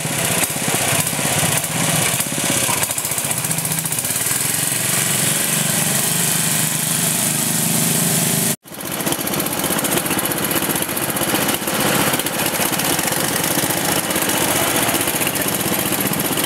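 Small engines running steadily, with a steady low hum under the noise. A split-second dropout a little over halfway, after which similar engine running carries on.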